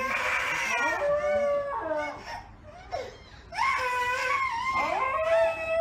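A husky-type dog howls in long, wavering calls that slide up and down in pitch. There are two drawn-out phrases with a short break about halfway through.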